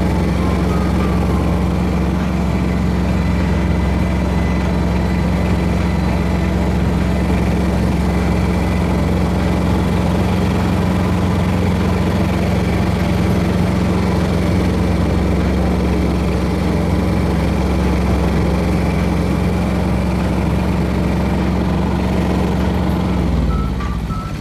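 Engine of a 15-horsepower 2007 Kubota compact tractor running steadily; near the end its pitch drops as the engine slows down.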